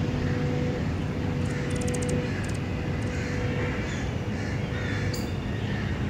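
Outdoor ambience: a steady low hum with birds calling now and then, and a few faint clicks.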